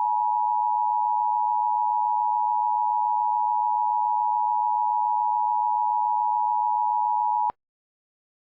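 Emergency Alert System attention signal: a steady two-tone alarm of 853 Hz and 960 Hz sounded together, warning that an emergency alert message follows. It cuts off abruptly about seven and a half seconds in.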